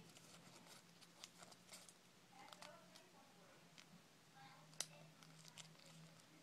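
Near silence with faint crinkles and clicks of a small origami paper figure being creased and pressed between the fingers, with one sharper tick near five seconds in, over a low steady hum.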